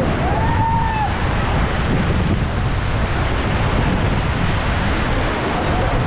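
Loud, steady rush of whitewater rapids churning around an inflatable raft, with wind buffeting the camera microphone.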